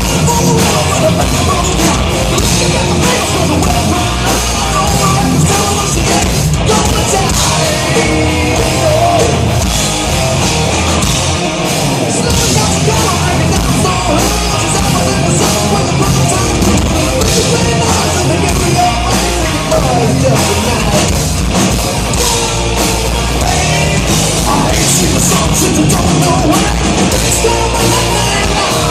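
Loud heavy rock music with distorted electric guitars and a driving drum kit, with some sung or shouted vocals.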